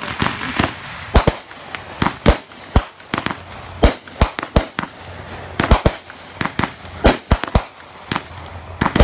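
Aerial fireworks bursting overhead: a rapid, irregular series of sharp bangs, about two a second, with crackling between them.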